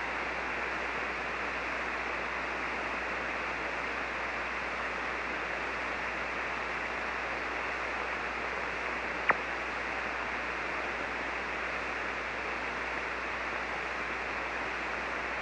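Steady static hiss from a ham radio receiver on 40-metre SSB while no station is transmitting, over a faint low hum. A single short click comes about nine seconds in.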